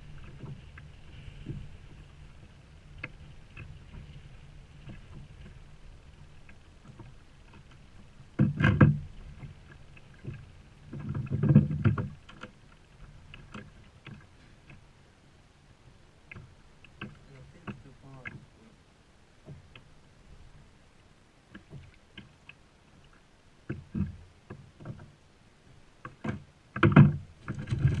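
Water slapping against a plastic fishing kayak's hull, with many small clicks and knocks from hands working at a fishing lure. There are two louder bursts of scuffling about nine and twelve seconds in.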